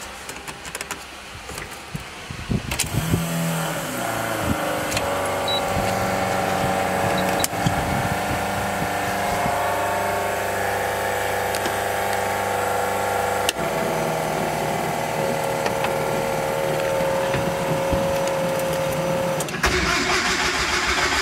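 Turbocharged Mitsubishi 4G63 four-cylinder engine cranking and starting about three seconds in, then idling steadily. There is a sharp click about halfway through, and the engine sound gets louder and fuller near the end.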